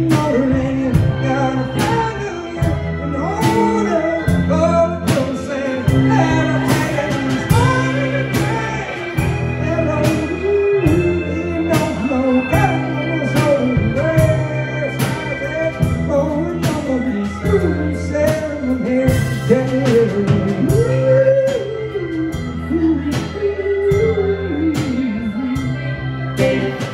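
A live band plays a blues-soul groove on electric guitar, drum kit and keyboard, with a steady drum beat and bending melody notes.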